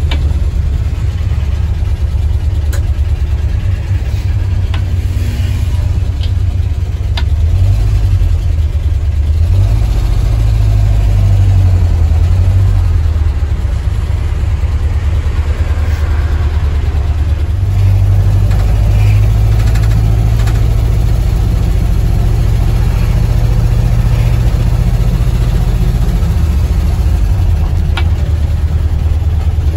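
A 1976 Ford F-250 pickup's engine running while driving, heard from inside the cab: a low, steady engine note whose pitch shifts a couple of times as the truck changes speed.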